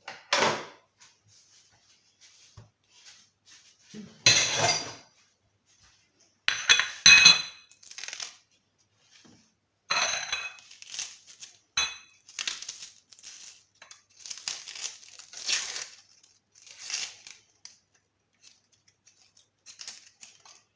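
Red onion being peeled by hand: the dry papery skin tears and crackles in short bouts, with a few knocks and clinks against a dish, the loudest at about four and seven seconds.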